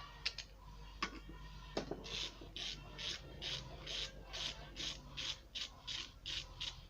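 Socket ratchet wrench clicking in quick back-and-forth strokes, about two and a half a second, on the moped engine's flywheel nut, after a couple of knocks.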